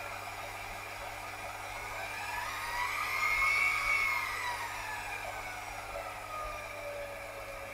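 Milling/drilling machine running as a drill bit bores into an aluminium part held in a vise, over a steady motor hum. A whine rises in pitch and falls again, loudest about halfway through.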